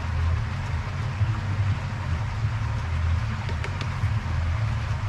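Pool pump motor running with a steady low rumble, with a few faint clicks.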